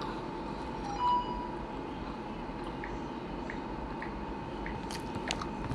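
Close-up chewing of a sandwich with small wet mouth clicks, over a steady thin background tone. A brief louder squeak-like tone comes about a second in.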